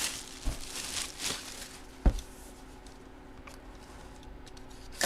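Handling of a sealed cardboard trading-card box as it is being unwrapped: plastic wrap crinkling for the first two seconds, a soft thump about two seconds in, then a sharp knock near the end.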